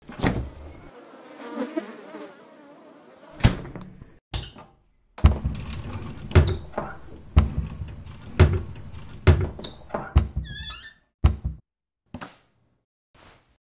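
A series of heavy thuds, about one a second through the middle stretch, with a short wavering high-pitched squeal about ten seconds in. A softer, noisy stretch fills the first few seconds.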